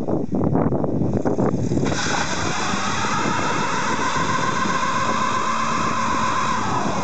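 1996 Ford Mustang doing a burnout. The engine runs at first, then about two seconds in the rear tyres break loose into a steady squeal of spinning rubber, which falls slightly in pitch near the end.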